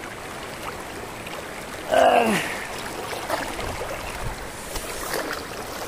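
Shallow mountain river rushing steadily over rocks around someone lying in it. About two seconds in, a man's voice gives one short, loud exclamation falling in pitch, not a word.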